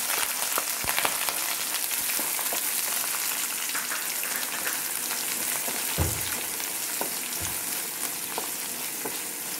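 Chopped garlic, ginger and green chillies frying in hot coconut oil in an aluminium kadai, a steady sizzle, stirred with a spatula. Two soft knocks come past the middle.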